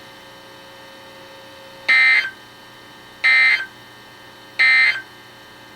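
Three short bursts of NOAA Weather Radio SAME digital data tones, about half a second each and a little over a second apart, with a steady low radio hiss between them. This is the end-of-message code that closes a flood warning broadcast.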